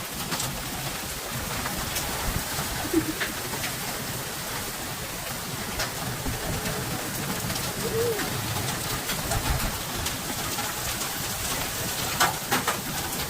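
Steady rain falling during a thunderstorm, with scattered sharp drips striking nearby surfaces. A dove coos briefly twice, about three seconds in and again about eight seconds in.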